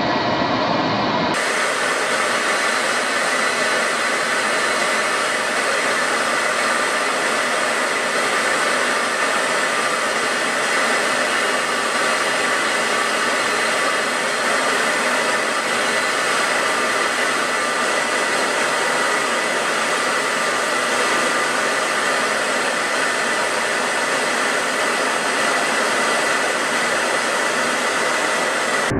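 Steady rushing noise of a jet aircraft in flight, with faint whining tones under it. It starts at a cut about a second in and holds even.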